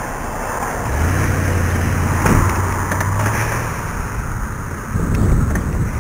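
Wind buffeting the microphone of a moving bicycle rider. A pickup truck's engine hums steadily close by for a couple of seconds as it is passed, starting about a second in.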